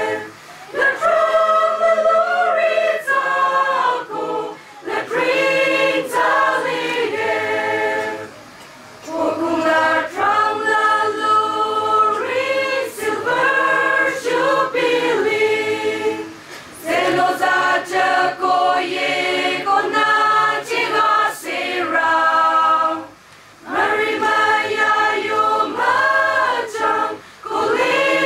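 A choir of young women and men singing together. The song moves in phrases of a few seconds, each broken by a short pause for breath.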